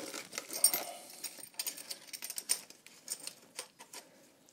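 Light, irregular metal clinks and rattles as the clamp holding a turbocharger to its exhaust side is handled and fitted by hand, with some crinkling of aluminium foil. The clinks come thickest in the first second and thin out after.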